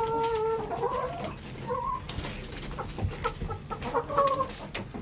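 Brown laying hens clucking and calling, with one drawn-out call at the start and several shorter calls later, amid scattered sharp taps.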